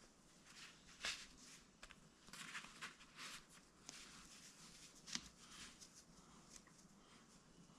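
Faint rustling and scratching of hands working the lace of a sandal, with a few soft ticks, the sharpest about a second in and about five seconds in.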